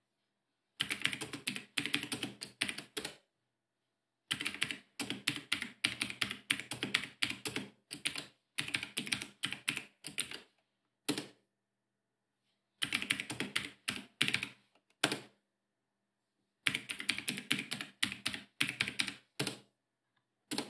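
Fast typing on a computer keyboard, in several bursts of rapid keystrokes separated by short pauses, with a few single key presses between them and one at the very end.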